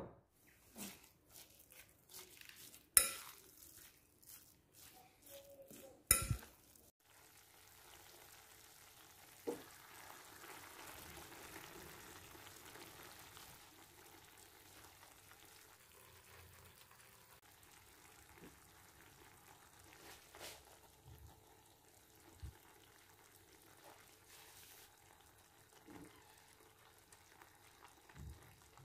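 Food frying in a pan with a faint steady sizzle, being stirred, with occasional small clicks. A few sharp knocks come in the first seven seconds, before the sizzle settles in.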